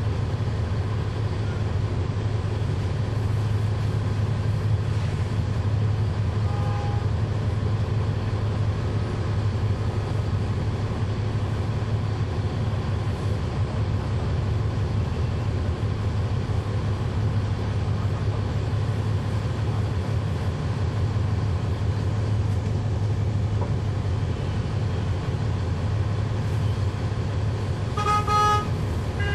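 Cummins ISL9 diesel engine of a NABI 40-SFW transit bus running with a steady low drone, heard from inside the rear of the bus. A short beeping tone sounds near the end, with a fainter brief one about seven seconds in.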